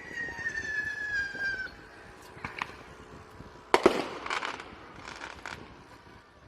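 Fireworks going off: a whistle sliding slowly down in pitch for about a second and a half, a couple of light cracks, then two sharp bangs a little past halfway, followed by crackling.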